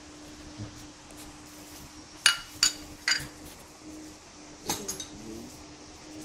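Metal spoon clinking against a ceramic bowl: three sharp clinks a little after two seconds in, then another near five seconds, over a faint steady hum.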